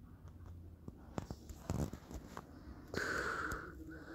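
A person breathing close to the microphone: a few faint clicks, then a loud breathy exhale about three seconds in that lasts about a second.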